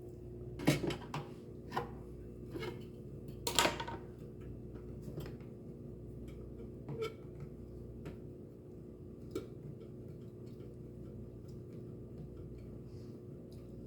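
Scattered small clicks and knocks of metal parts and hand tools being handled while an Instant Pot's base is taken apart, the two loudest about a second in and near the four-second mark, then only occasional light ticks over a steady low hum.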